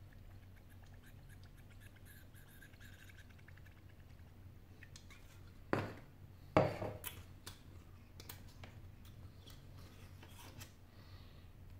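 Light clicks and taps of a phone display and small parts being handled on a desk, with two sharp knocks about six seconds in.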